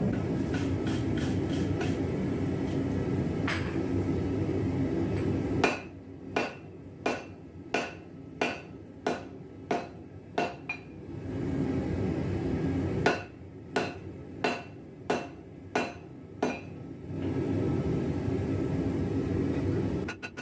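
Gas forge burner roaring, broken by two runs of about eight hand-hammer blows on hot steel against an anvil, a little under two blows a second, with the forge roar back between and after them: a Damascus billet being heated and forged out.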